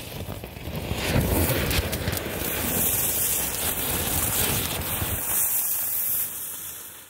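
A small firework fountain spinner buried in snow, burning and spraying sparks up through the snow with a loud, steady hiss that dies away about six seconds in.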